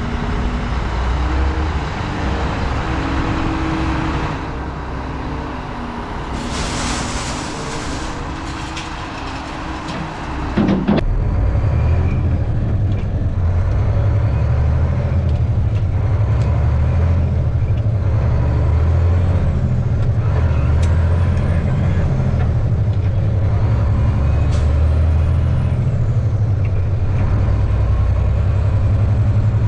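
Single-axle Mack sander truck's diesel engine running, with a short burst of air hiss about seven seconds in. From about eleven seconds in the engine is louder, a steady deep drone.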